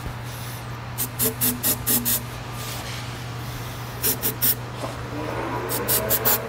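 Aerosol can of silicone spray hissing in three quick groups of short spritzes. The spray lubricates the inside of a silicone charge tube so it slides onto its fitting.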